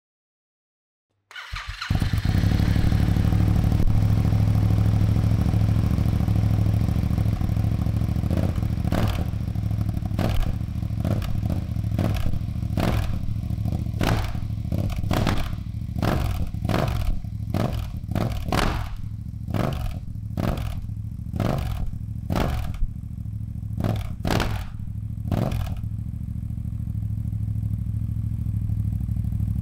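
Yamaha MT-07's parallel-twin engine running through a full Akrapovic carbon exhaust with the baffle in. It idles at first, then is revved in a long run of quick throttle blips, about two a second, from about eight seconds in until about twenty-six seconds, then settles back to idle.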